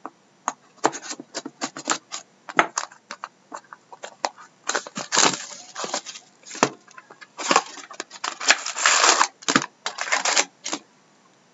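Quick irregular clicks and crackles with two longer stretches of crinkling and tearing: plastic wrap and packaging being handled and torn open on a sealed box of hockey trading cards.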